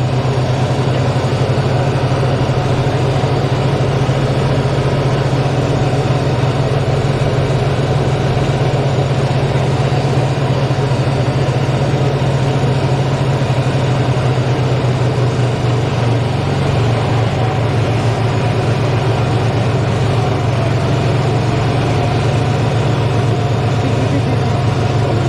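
2010 John Deere Gator utility vehicle's engine running steadily while it is being driven, heard from the seat.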